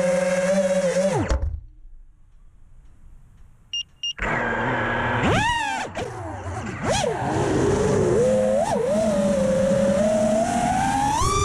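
Brushless motors and propellers of a 5-inch FPV quadcopter whining steadily, then chopped to idle about a second in so the whine falls away and goes nearly quiet for a couple of seconds, with two short high beeps in the lull. The whine then cuts back in and swoops rapidly up and down with throttle punches through flips, settles, and climbs in pitch near the end.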